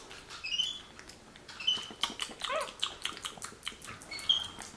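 Capuchin monkey giving short high-pitched chirps three times, amid wet clicking and lip-smacking as he mushes banana in his mouth.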